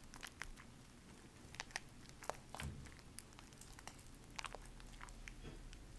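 Bar soap being lathered by hand in a foil pan of thick foam: faint, irregular wet crackles and clicks as the lather is squeezed and worked.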